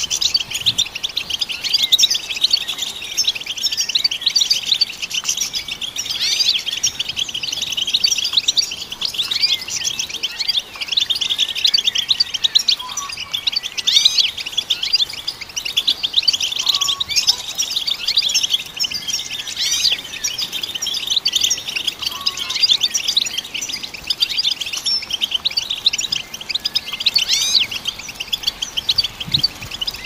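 European goldfinch singing: a continuous, fast, high-pitched twittering song of quick chirps and trills.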